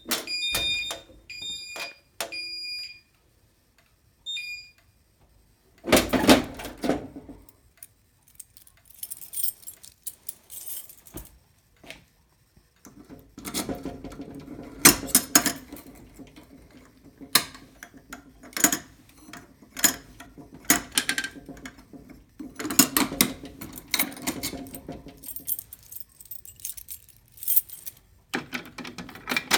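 A fire alarm horn sounds in short pulses and stops a few seconds in. After a pause, irregular metallic clicking, clattering and rattling follows in spells with pauses between.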